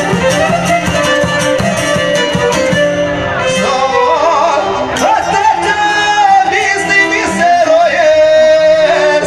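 Live folk band with violin and a long-necked plucked string instrument playing. About three and a half seconds in, a male singer comes in over them.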